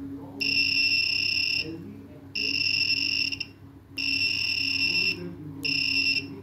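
Arduino-driven buzzer on a breadboard sounding four separate high-pitched beeps, each about a second long, as push buttons are pressed one after another. All four beeps sit at about the same pitch.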